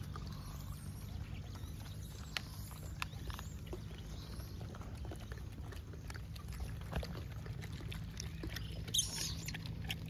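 A troop of gray langurs feeding, with scattered small clicks and rustles over a steady low hum, and a brief sharper sound about nine seconds in.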